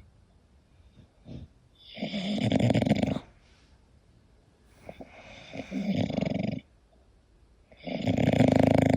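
English bulldog snoring in its sleep: three loud snores, each about a second long, coming roughly every three seconds with quiet breaths between.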